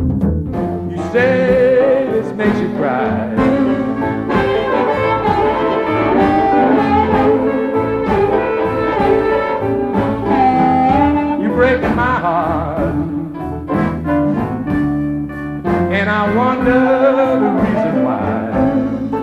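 Live electric blues band playing, led by a harmonica blown into a cupped vocal microphone, its notes bending and wavering over the band.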